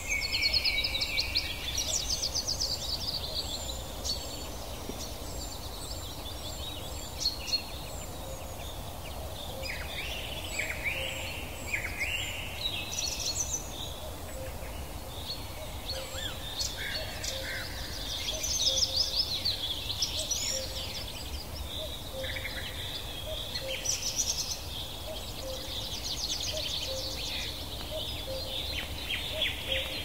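Small birds chirping and singing, with quick high trills and short chirps coming and going throughout over a steady low background rumble.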